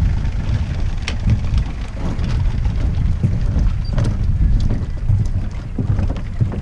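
Wind buffeting the microphone in a steady low rumble, with a few light knocks and clicks.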